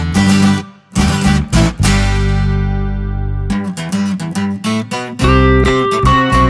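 Background music led by guitar: plucked and strummed notes over a bass line, with a short break just before a second in and a chord held for about a second and a half in the middle.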